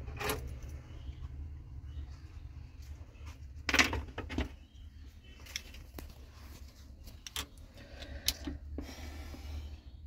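Scattered metallic clicks and knocks as a car key is handled and fitted into the clamp of an Xhorse Dolphin XP-005L key-cutting machine, loudest about four seconds in, over a steady low hum.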